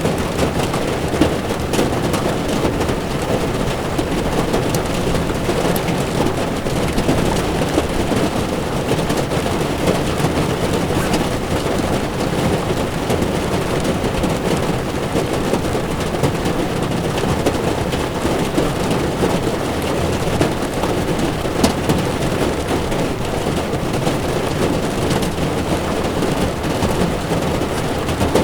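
Heavy rain falling on a car's windshield over the steady rush of tyres on a wet road, with scattered sharp drop hits.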